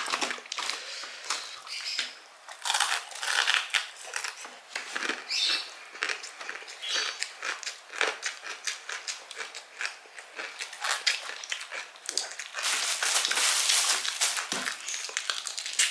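Close-miked crunching and chewing of crispy fried chicken with kremes crumbs: a dense, irregular run of crackly bites and chews, with a louder, continuous crackling stretch near the end.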